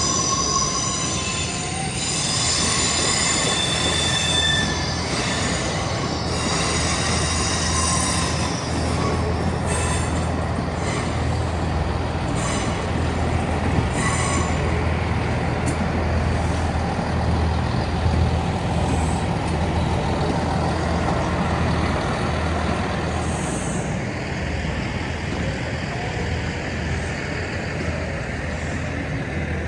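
A train running through the station, its wheels squealing on the rails for roughly the first ten seconds before the squeal fades, over a steady low rumble.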